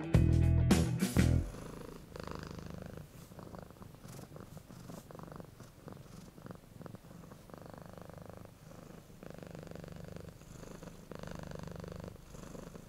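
A domestic cat purring close to the microphone, in repeating breath cycles of about a second each. Strummed music ends about a second and a half in.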